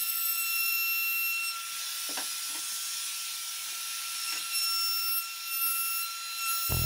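Steady high hiss with a thin, even whine running under it. A few soft knocks about two seconds in and again past four seconds, as pine rails are shifted on the workbench.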